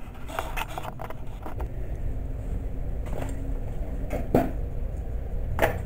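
Handling noise as the camera is moved by hand: rustling and a cluster of small clicks, then two sharper knocks a little past four seconds and near the end, over a steady low rumble.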